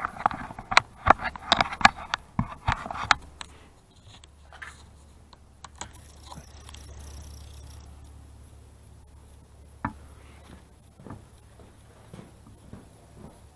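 A quick run of sharp clicks and knocks for about three seconds, then a few faint, scattered taps.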